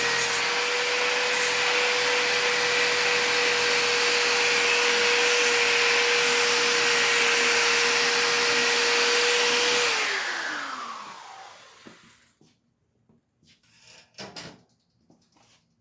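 Electric power tool fitted with a wire brush scrubbing a bicycle frame clean of paint and primer, the motor whining at a steady pitch; about ten seconds in it is switched off and its whine falls as it spins down, followed by a few light knocks as it is handled.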